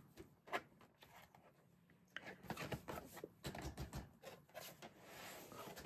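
Faint rustling with scattered light clicks and soft knocks: a binder and its plastic sleeve pages being handled.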